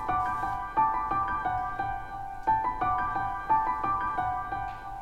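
Background music: a melody of struck piano-like keyboard notes in a steady rhythm.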